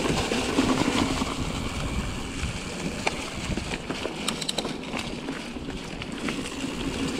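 Pivot Mach 5.5 mountain bike riding down leaf-covered dirt singletrack: tyres rolling over dirt and leaves, with wind buffeting the microphone. A cluster of sharp clicks and rattles from the bike about three to five seconds in.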